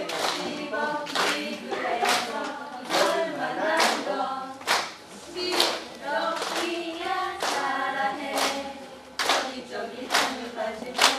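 A small mixed group of men's and women's voices singing a number song together unaccompanied, with hand claps keeping a steady beat, a little faster than one a second.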